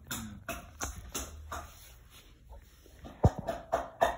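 Cardboard tube being handled and set down on a hard floor: a run of short scrapes and soft knocks, then a louder thump a little past three seconds in and a few clicks.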